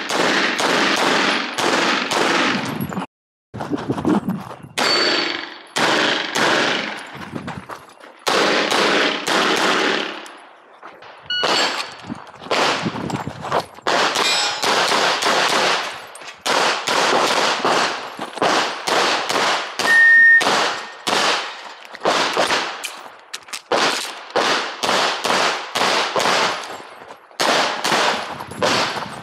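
9 mm Glock 48 pistol fired in rapid strings of shots, groups of quick shots broken by short pauses, as in a practical shooting stage run.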